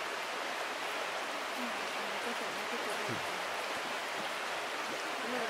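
Steady rushing of a fast, shallow river running over rocks.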